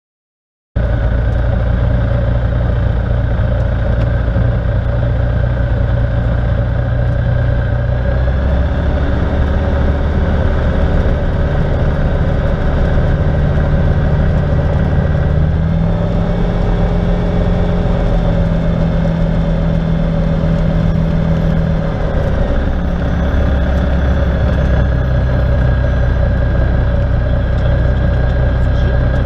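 Rans S-6S Coyote light aircraft's engine and propeller running while taxiing, heard from inside the cockpit. The drone starts abruptly about a second in, and its note shifts several times as the power changes.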